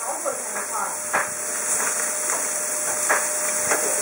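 Scotch fillet steaks sizzling with a steady hiss on a hot flame grill, with a few sharp clicks of metal tongs against the grate and meat as the steaks are turned, one about a second in and two more near the end.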